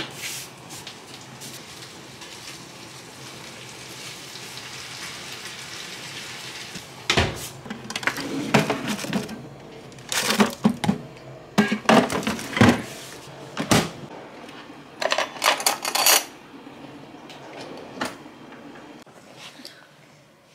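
An oven door shutting with a sharp click, then a steady hiss for about seven seconds. Then a run of knocks and clatter as plastic containers and an ice-cream tub are moved about in a freezer drawer.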